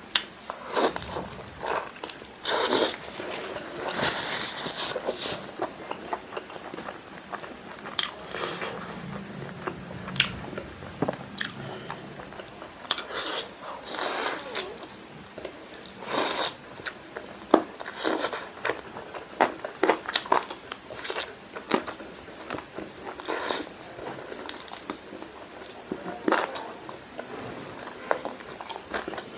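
A person eating spicy fried chicken wings and drumsticks by hand: irregular biting and chewing, with many short, sharp wet clicks and smacks from the mouth.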